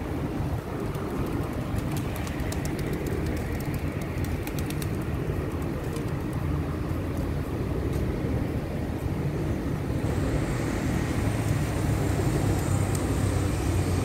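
A large flock of feral pigeons feeding on scattered grain, cooing and pecking over a steady low rumble. A flurry of faint clicks comes about one to five seconds in.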